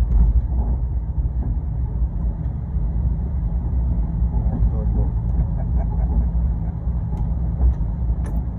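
Steady low rumble, with faint voices in the background.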